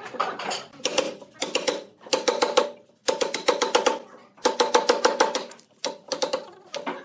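Hand saw cutting down into a softwood block in short strokes. Each stroke is a quick rasping rattle of the teeth, with brief pauses between strokes.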